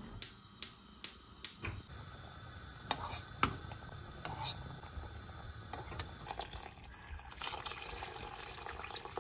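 A gas stove's spark igniter clicks a few times in an even rhythm, then a pot of dried beans bubbles at the boil. Near the end a stream of cold water pours into the pot.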